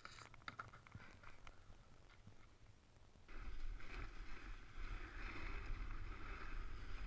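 Faint scratchy clicks of snow under a moving rider, then about three seconds in a jump to a steady, louder hissing rush of sliding fast over packed piste snow, with wind rumbling on the camera microphone.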